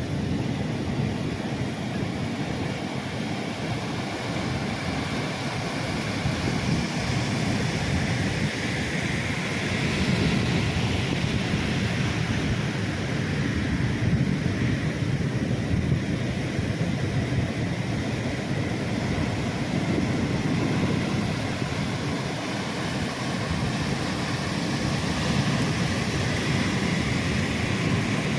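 Ocean waves breaking and washing onto a beach in a continuous surf noise that swells and ebbs every several seconds, with wind rumbling on the microphone.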